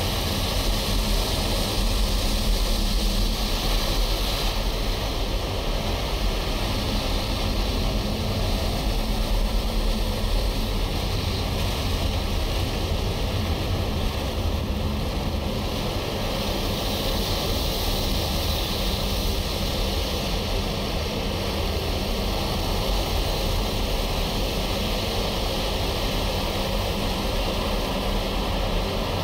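Automatic car wash running: a steady, unbroken rush of spraying water and machinery.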